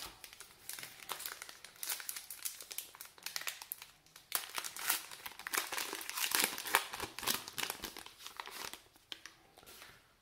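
The wrapper of a 2012 Topps Gypsy Queen baseball card pack crinkling and tearing as it is ripped open and peeled back by hand. The irregular crackles thin out near the end.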